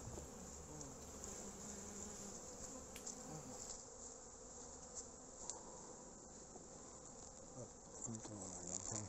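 Honeybees buzzing around the hive entrance, a continuous hum with single bees flying close past, their pitch wavering up and down, in the first second and again about eight seconds in.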